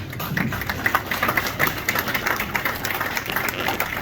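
A small crowd clapping.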